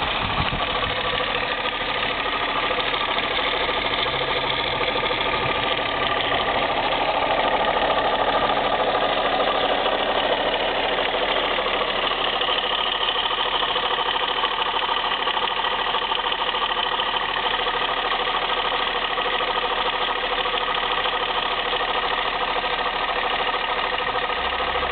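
Volkswagen VR6 narrow-angle six-cylinder engine running steadily, with a strange noise in it that its owner is trying to pin down.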